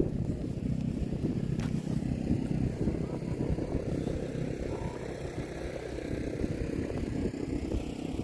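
Wind buffeting the microphone: a steady, choppy low rumble.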